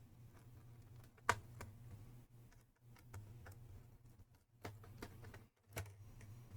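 Scattered small clicks and taps of laptop parts and tools being handled during disassembly, the sharpest about a second in, over a faint low hum.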